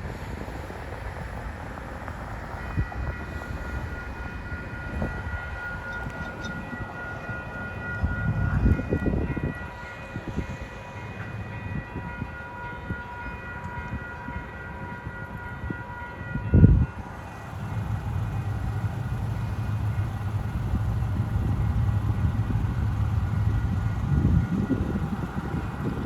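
Union Pacific grain train approaching: a locomotive horn holds a steady chord for most of the first two-thirds. Then the low rumble of the diesel locomotives builds from about two-thirds of the way in, with a sharp thump just before it.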